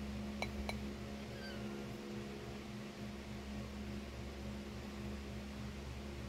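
Steady low electrical hum from a household appliance motor, with two light clicks about half a second in.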